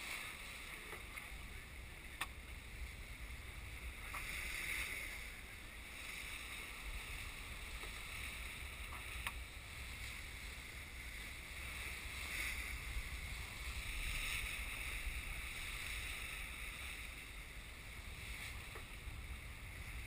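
Sailing yacht under way: a low wind rumble on the microphone and a hiss of water along the hull that swells and fades every few seconds, with a couple of sharp clicks about two and nine seconds in.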